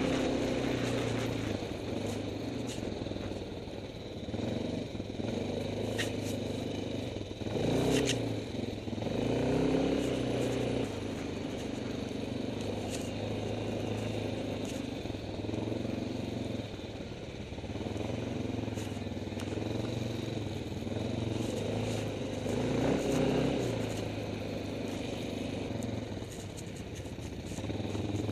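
Quad bike engine running under way on a rough track, its pitch rising and falling with the throttle, with a few sharp knocks and clatter from the bumps around six to eight seconds in.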